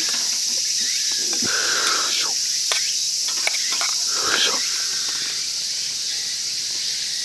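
A steady, high-pitched chorus of insects, with a few light taps of chopsticks against a metal cup in the middle.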